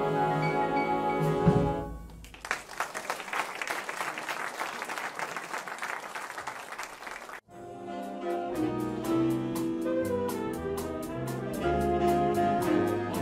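Big band holding the final chord of a ballad, closed with a low accent about a second and a half in, then audience applause for about five seconds. The applause cuts off abruptly and a swinging big-band number follows, with moving bass notes and a steady cymbal beat.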